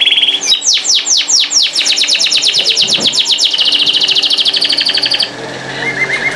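Canary singing: a held whistled note, then a long, rapid trill of quickly repeated falling notes lasting about four and a half seconds, ending in a few softer notes.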